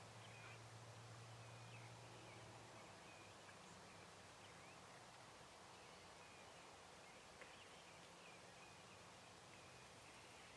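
Near silence: quiet woodland background with faint, scattered bird chirps.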